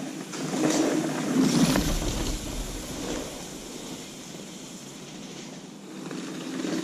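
Wind rushing over the microphone and through the trees in gusts, strongest in the first two seconds and building again near the end.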